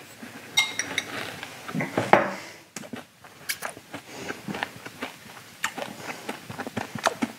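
A mouthful of blended Warheads sour hard candy being chewed, with irregular crunching and crackling throughout. A short ringing clink about half a second in.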